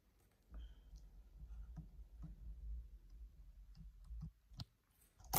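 Faint scattered clicks and handling rustle from small thread snips and fingers working thread ends on a faux-leather (PU) piece, with a louder knock near the end.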